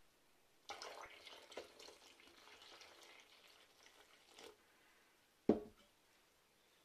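Water poured from an enamel saucepan into a bowl of flour, a faint splashing trickle, then a single knock about five and a half seconds in as the saucepan is set down on the counter.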